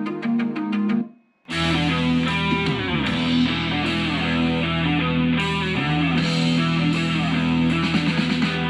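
Music playing from an iBall Musi Bar sound bar. It breaks off about a second in, and after half a second of silence a guitar-led rock track begins.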